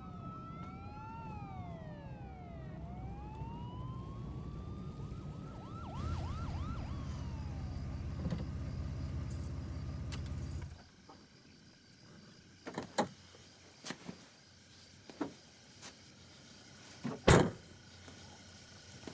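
Several police sirens wailing and yelping over the low rumble of a car driving, heard from inside the car; the rumble and sirens stop abruptly about halfway through. After that, a few sharp knocks and thumps, the loudest near the end.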